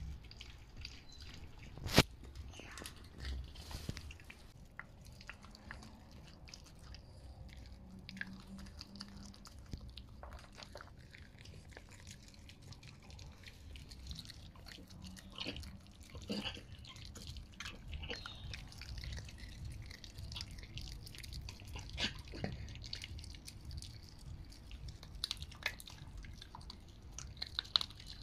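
Chinese Crested dogs chewing and crunching raw meaty bones, with irregular sharp cracks; the loudest is about two seconds in.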